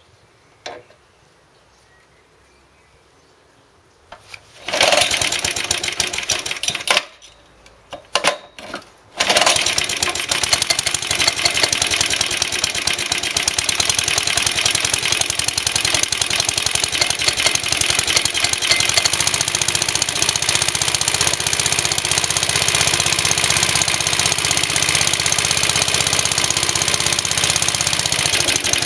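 Suffolk Iron Foundry 75G14 single-cylinder four-stroke side-valve engine on an early-1960s Suffolk Colt cylinder mower being started from cold: it fires briefly about four seconds in and dies, then catches about nine seconds in and runs steadily, muffled by a replacement exhaust.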